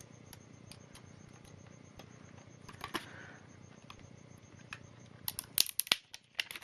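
Plastic film or wrapping being handled: a few faint ticks, then a run of sharp crackling and clicking from about five seconds in.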